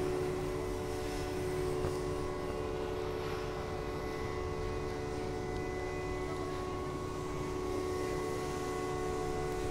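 Heavy machinery on a cargo ship working a crane lift, running with a steady drone of several fixed tones over a low rumble.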